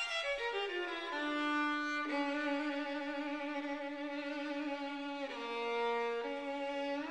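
Background music: a single melodic line that slides down through a quick run of notes, then holds long notes with vibrato, dipping briefly to a lower note about five seconds in.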